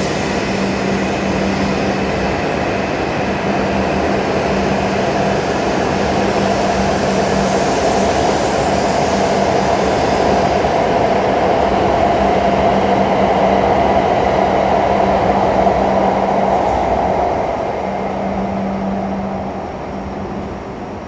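Hokuriku Shinkansen train pulling out of the station, its cars passing close by as it gathers speed: a steady rushing run with a low steady hum. It grows louder until about 17 seconds in, then fades as the tail car goes by.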